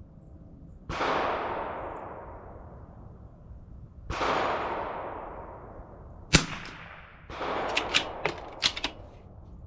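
A CZ 457 .22 LR bolt-action rifle firing RWS Rifle Match ammunition: two shots about three seconds apart, each with a long fading echo, then a sharp metallic click and a quick run of clicks from the bolt being worked near the end.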